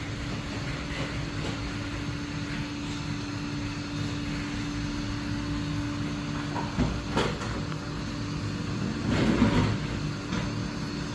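Roomba robot vacuum running with a steady motor hum and a steady tone that cuts out about seven seconds in, around a couple of sharp knocks. A louder burst of noise comes about two seconds later.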